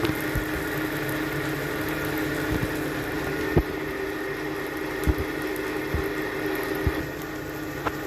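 Tomato-onion masala frying in mustard oil in a kadhai, a steady sizzle with scattered pops, over a steady mechanical hum.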